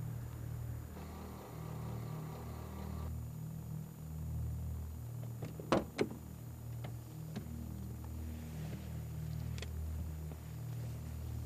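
A car door unlatching with two sharp clicks a little past halfway, then being opened, with a few fainter clicks after, over a steady low engine rumble.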